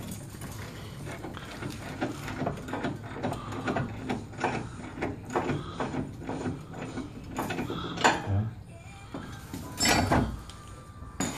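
Irregular metallic clicks and knocks from a tubular steel K-member and its bolts being worked into place under a car, with a louder knock about eight seconds in and another about ten seconds in.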